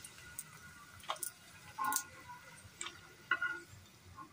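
A ladle clicking and tapping against a wok, several light, irregular knocks and clinks, as fried dry red chillies and garlic are scooped out of the hot oil.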